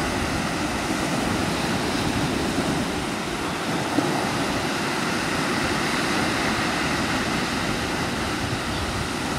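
Steady rushing outdoor noise of wind and moving water at a river mouth, with no distinct events.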